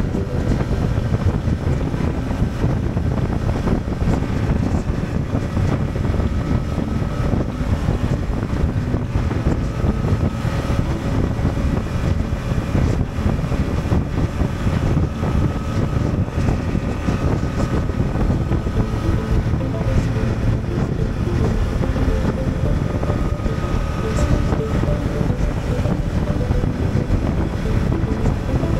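2023 Honda Transalp's parallel-twin engine running steadily while riding, with heavy wind noise on the microphone.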